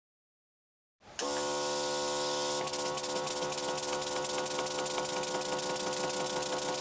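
Small model 5-cylinder rotary engine running on compressed air: a steady air hiss with a faint whine starts about a second in, and from about two and a half seconds in a fast, even ticking from the spinning engine joins it.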